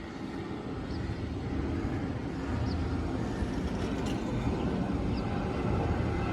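Airliner engine noise on approach to land: a steady low rumble that slowly grows louder.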